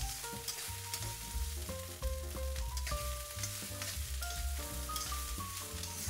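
Fried rice sizzling in a wok as it is stir-fried, with a metal spatula scraping and knocking against the pan at irregular intervals. Soft background music with a melody of held single notes plays along.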